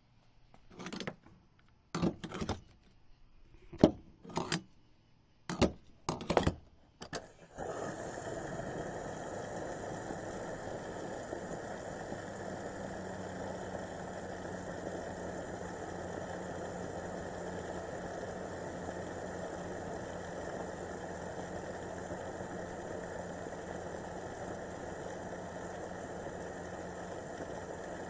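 Gas station fuel pump filling a car: about eight sharp clicks and clunks over the first seven seconds, then a steady rush of fuel flowing through the nozzle with a low pump hum.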